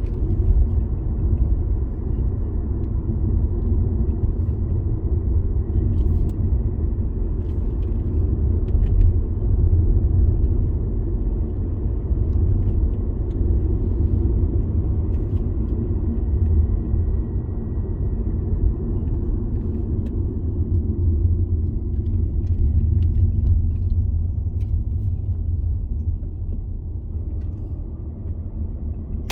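Car being driven at steady speed: a continuous low rumble of engine and tyres on the road, with a few faint ticks.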